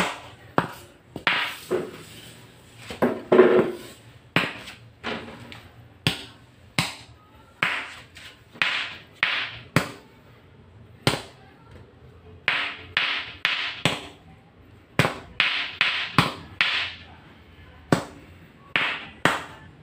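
A stick and a metal rod knocking and scraping on a tiled floor while trying to pin and lift a small snake: repeated sharp knocks at irregular intervals, roughly one or two a second.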